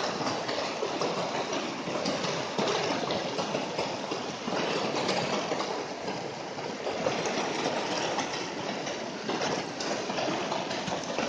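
A fast-flowing mountain stream rushing and splashing over rocks close by, a steady, unbroken rush of water.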